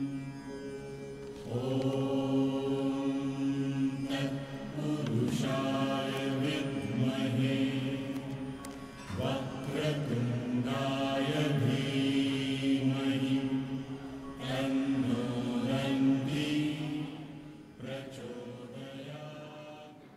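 Devotional chant sung in long, held melodic phrases with short breaks between them, fading near the end.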